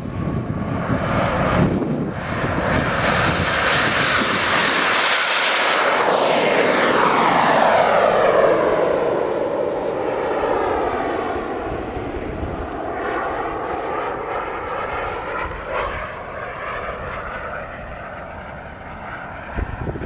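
Radio-controlled model jet taking off and flying past: a high whine rising in pitch in the first second, over a rushing jet noise. The noise swells to its loudest at about eight seconds, sweeps down as the plane passes, then fades as it climbs away.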